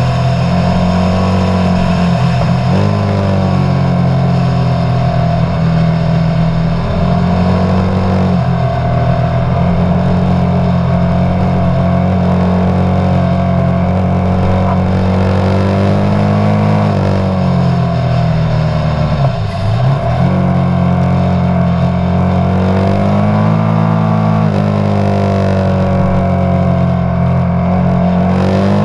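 Motorcycle engine heard while riding, holding steady revs for long stretches, with its pitch dropping briefly and climbing back about four times.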